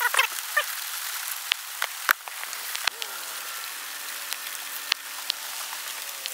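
Steady hiss with a few sharp clicks as air-up hose chucks are pushed onto tire valve stems. A faint low hum comes in about halfway through.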